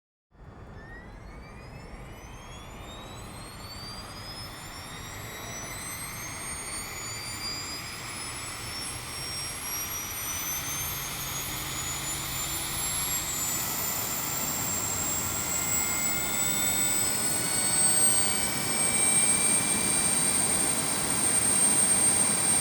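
Embraer E175's auxiliary power unit starting up, heard from outside the aircraft: a small gas turbine spooling up with a whine that climbs steadily in pitch, louder and louder, then levels into a steady high whine over a jet rush as it reaches running speed.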